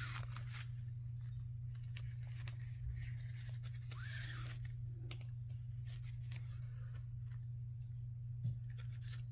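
Needle and thread pulled through layered ribbon while hand-stitching the centre of a hair bow: a few soft swishes as the thread draws through, with small rustles and clicks of the ribbon being handled, over a steady low hum.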